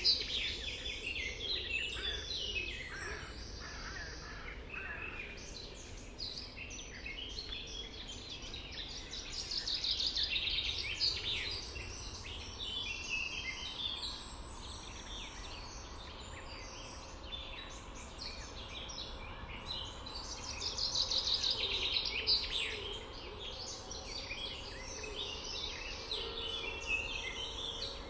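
Several birds singing at once, overlapping chirps and song phrases, with bursts of busier song twice, over a steady low rumble.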